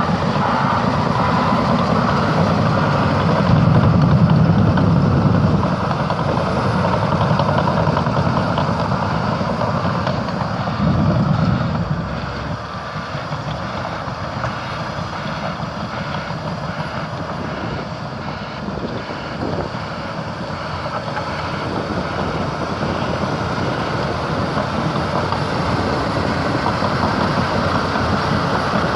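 Caterpillar D6T LGP bulldozer working: its diesel engine runs with steady track clatter. The sound is heavier for about the first twelve seconds, then drops to a lower level.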